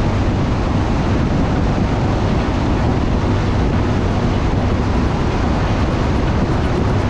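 Steady rush of wind and road noise from a vehicle driving fast through a road tunnel, over a low engine hum.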